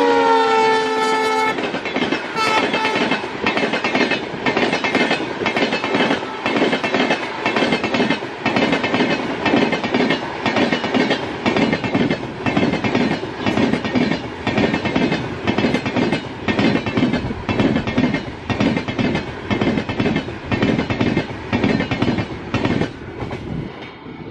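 A diesel locomotive's horn sounds as it passes, dropping in pitch and cutting off about a second and a half in. The train's coaches then run by with a steady, rhythmic clickety-clack of wheels over rail joints, which fades just before the end.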